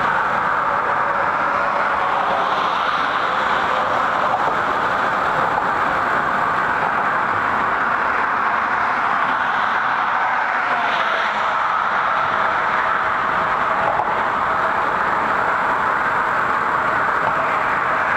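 Steady rushing road and traffic noise heard while riding a bicycle across a bridge path, with a faint tone that drifts slowly in pitch.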